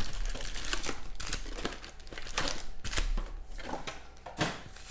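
Foil-wrapped trading card packs crinkling and rustling, with irregular little clicks and crackles, as they are pulled out of a cardboard hobby box and set down in stacks.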